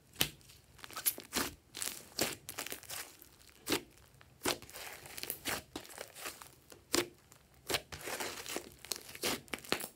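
A large mass of thick grey slime squished and pressed by hands: irregular sharp pops and crackles, one or two a second, with a denser stretch of crackling near the end.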